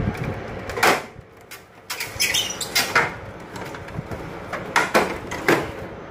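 A series of sharp, irregular knocks and clatters, about eight over a few seconds, over a low rumble that drops away briefly about a second in.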